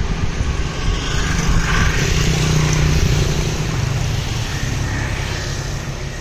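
A motor vehicle's engine running nearby, a steady low rumble that is loudest about two seconds in and then slowly fades, as street traffic going by.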